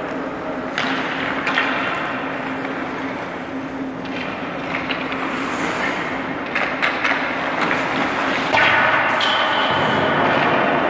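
Ice-rink sounds of a hockey drill: skates scraping the ice and sharp clacks of stick and puck, several in quick succession about two-thirds of the way in, over a steady low hum.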